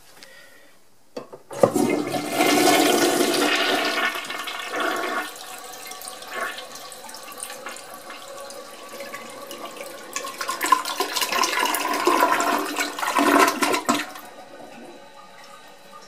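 Mansfield Imperial toilet flushing: a click, then a loud rush of water swirling down the bowl. The rush eases after a few seconds, swells loud again for a few seconds near the end, then drops to a quiet steady running of water.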